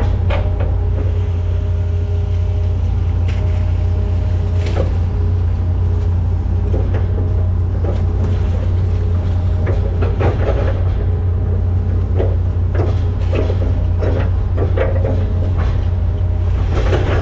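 Hitachi Zaxis 210F-5G excavator's diesel engine running steadily under working load, heard from inside the cab, with scattered clunks and knocks as the arm and bucket dig mud, more of them in the second half.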